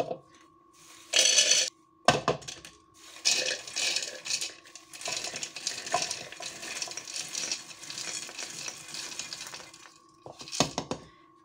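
Roasted peanuts poured from a plate into the plastic bowl of a mini food chopper, rattling and clattering as they are pushed in by hand. A short loud rattle comes about a second in, then a long run of rattling from about three seconds to ten, and a last brief rattle near the end.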